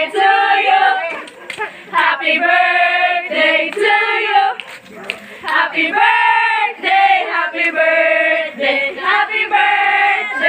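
A group of women singing together in a slow song of held notes, with short breaks between the phrases.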